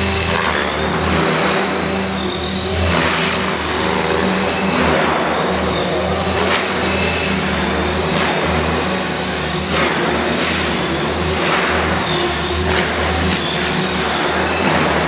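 MSH Protos 500 electric radio-controlled helicopter in flight: a steady rotor hum with a thin high motor and gear whine, swelling and easing every few seconds as it manoeuvres.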